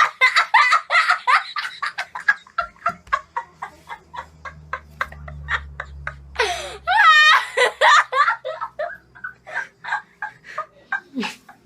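People laughing heartily in quick repeated bursts, with one high-pitched laugh about seven seconds in. A faint low rumble sits underneath for a few seconds in the middle.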